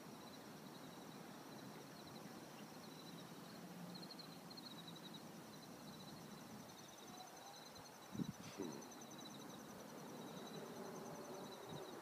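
Faint evening ambience of insects trilling steadily, with two short soft low thumps about eight seconds in.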